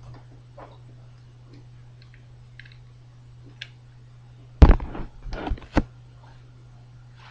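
Small clicks, then a cluster of loud thumps and crackles about four and a half to six seconds in, from an MP3 player's cable being plugged in and handled, over a steady low hum.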